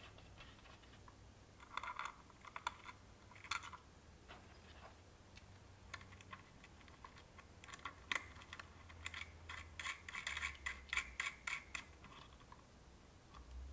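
Brass nuts being threaded by hand onto SMA connectors through an aluminum case's end panel: irregular small metallic clicks and scratches. They come in bunches about two seconds in and again more densely from about eight to twelve seconds.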